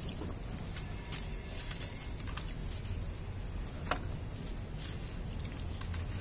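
Clumps of wet sand squeezed and crumbled by hand into a basin of muddy water: a steady run of soft gritty crackles and patter as grains break off and drop into the water, with one sharper click about four seconds in.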